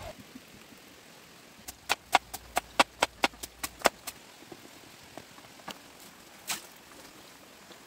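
A quick run of about a dozen sharp knocks, roughly five a second, then a few scattered single knocks.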